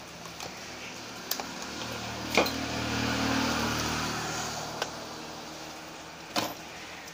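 Sharp clicks and taps of a plastic multimeter case being handled as it is opened, four times, the loudest about two and a half seconds in. Under them a low motor hum swells about two seconds in and fades away again.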